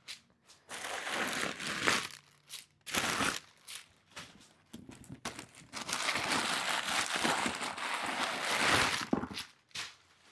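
Packing material crinkling and rustling as it is handled, in stop-start bursts with a longer spell in the second half.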